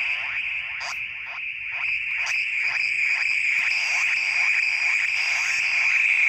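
Korg Monotron Delay analog synthesizer playing a steady high tone with rapidly repeating falling pitch sweeps, about three a second, that overlap one another.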